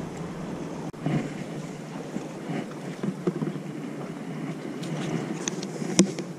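Wind on the microphone and gently lapping sea water, with a few light clicks and one sharp plastic knock about six seconds in as a white plastic bucket lid is handled.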